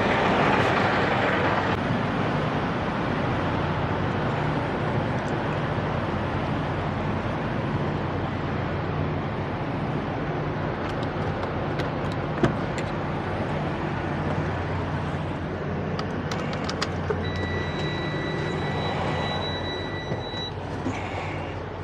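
Diesel semi-truck engines idling with a steady low hum, under wind noise. A few sharp clicks and knocks come in the middle, and near the end a steady high-pitched beep sounds for about three seconds.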